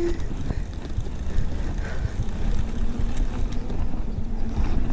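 Mountain bike tyres rolling over concrete, with wind buffeting the GoPro's microphone: a steady low rushing noise.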